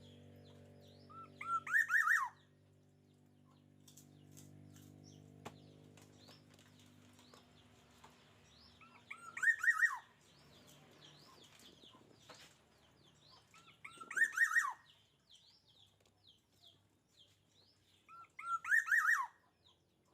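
A bird calling in four short bursts of quick, falling chirps, with fainter chirping in between. A low steady hum fades out about halfway through.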